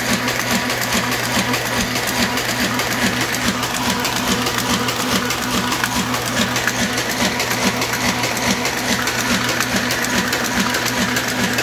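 Hamada 600 offset printing press running at speed, its gears and cams clacking in a fast even rhythm of about four beats a second over a constant low hum.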